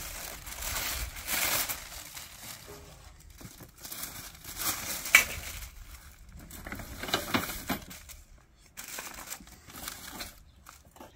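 Packaging crinkling and rustling in irregular bursts as barbecue grill parts are unpacked and handled, with a sharp knock about five seconds in.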